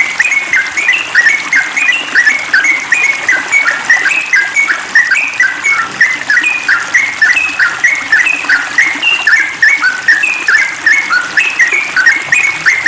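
Sooty-headed bulbul (trucukan) singing a fast, unbroken run of short whistled notes, several a second, rising and falling in pitch.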